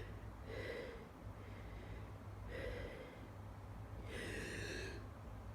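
Three faint breaths, the last one longest, from a person in a sneezing fit building up to the next sneeze.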